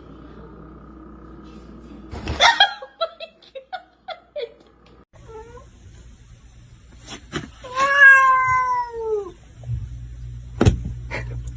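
Domestic cat meowing: a quick run of short, clipped meows, then one long meow that falls in pitch. A couple of sharp clicks, one near the end.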